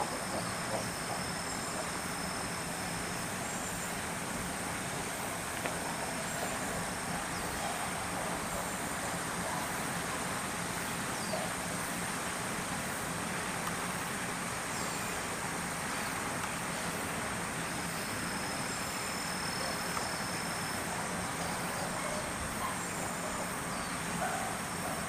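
Steady outdoor ambience: a continuous high-pitched insect drone, with a second insect trilling on and off and a few short bird chirps. A low, steady hum runs underneath.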